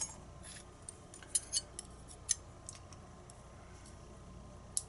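Light metallic clicks and taps of small tools and lock pins being handled while the pin stacks of a disassembled pin-tumbler lock are taken out, a few scattered clicks with a sharper one near the end.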